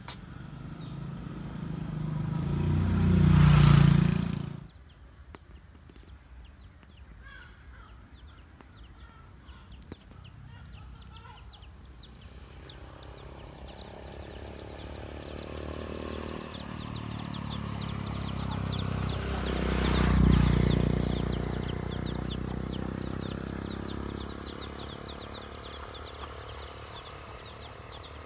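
Two vehicles pass. The first swells and then cuts off sharply about four seconds in; the second builds slowly to a peak around twenty seconds and fades away. Throughout, birds peep in many quick high chirps.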